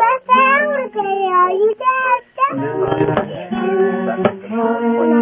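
A young child singing a simple song in short phrases, with an instrument accompanying.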